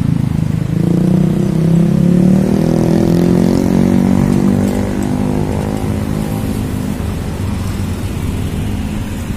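A motor vehicle engine running close by, its pitch slowly falling and getting a little quieter toward the end.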